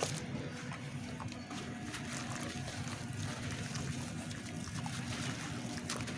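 Lumps of dry red dirt crumbling in water: a steady soft crackling hiss with scattered small ticks and pops.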